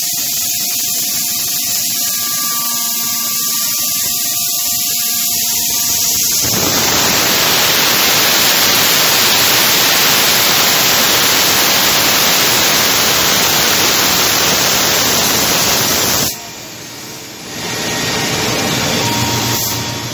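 Five-axis CNC router milling a wooden seat blank: the spindle runs with a few steady tones, then from about six seconds in the cutter in the wood gives a loud, even rushing noise that drops away briefly near the end.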